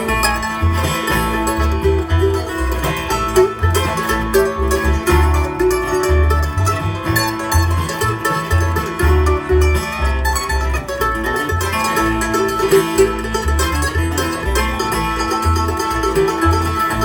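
A bluegrass band of banjo, mandolin, dobro, acoustic guitar and bass plays an instrumental break with no singing, the bass thumping steadily on the beat under the picked strings.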